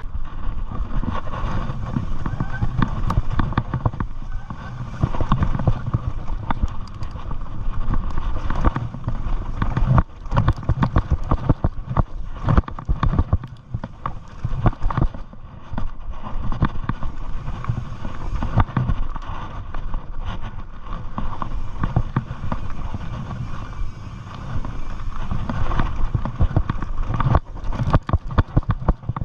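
Mountain bike rolling down a dirt singletrack: tyres crunching over dirt and stones, and the bike rattling and knocking over bumps, with a constant low rumble of wind on the microphone.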